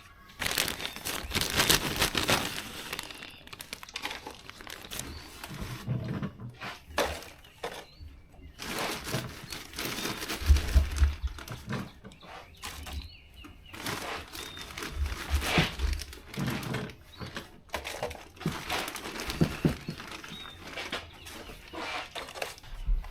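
Dirt being scooped and poured into plastic seed-tray cups: irregular rustling and scraping with crinkling plastic and a few dull thumps.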